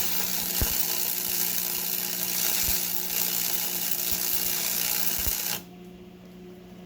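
Stick welding with a 1/8-inch 7014 rod: a steady crackling, hissing arc that stops abruptly about five and a half seconds in when the arc is broken, leaving a low hum.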